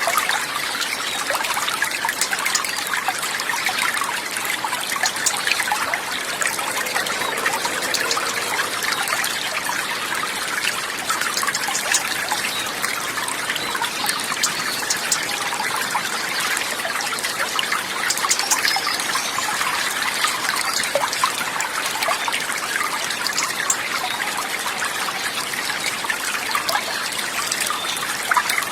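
Water trickling and splashing steadily over stones, like a small mountain stream, with no change in level.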